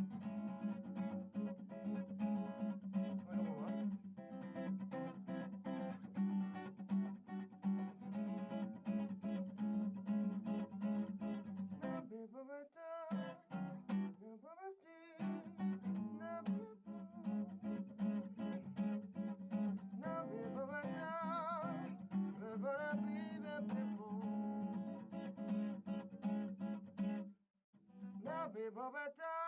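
Acoustic guitar strummed steadily while a man sings along with a wavering melodic line. The guitar stops for a couple of seconds about halfway, leaving the voice gliding alone, then comes back; a brief silence near the end breaks the playing before it starts again.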